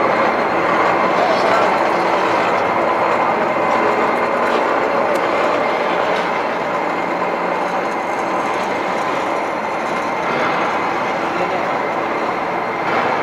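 Railway turntable rotating with a steady rumble and a few faint clicks, turning a steam locomotive, mixed with the murmur of a crowd in a large echoing hall.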